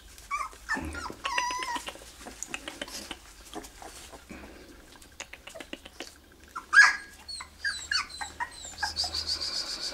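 Spanish Podenco Orito puppies whining and squealing in short, high calls that rise and fall, with a longer high-pitched whine near the end. Scattered clicks run through it.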